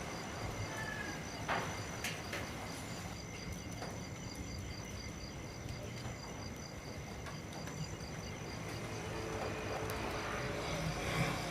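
Steady rain falling on leaves, with an insect chirping in a rapid, even high-pitched pulse throughout and a few sharp drip taps.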